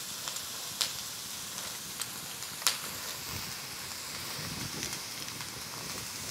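Vegetables (broccoli, carrots, red peppers) sizzling steadily in a hot carbon steel wok. A few sharp clicks, about one, two and nearly three seconds in, come from a metal garlic press being loaded and squeezed.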